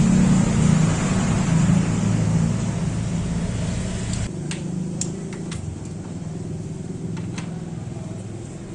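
A steady low mechanical hum, like an engine running, that drops in level about four seconds in. A few light metallic clicks follow as a galvanized elbow fitting and a pipe wrench are handled on a threaded water pipe.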